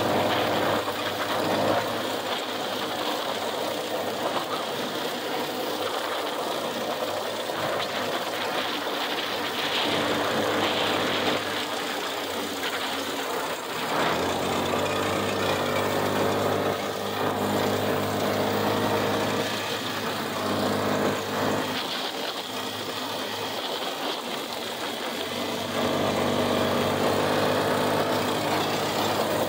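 Small single-cylinder Harbor Freight Predator engine running a homemade track sled under load, with a metal-on-metal creaking vibration from the lawnmower hood rubbing on its metal mounting pin. The engine note dips and shifts briefly about halfway.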